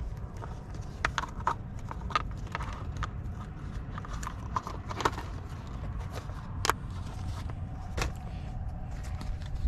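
Wind rumbling on the microphone, with scattered small clicks and rustles of fishing tackle being handled.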